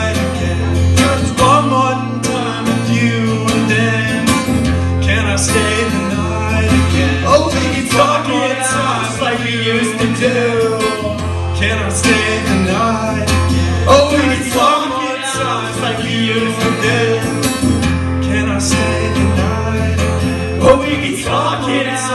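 Live acoustic band playing an instrumental passage between sung lines: guitar over a low note pattern that changes every couple of seconds.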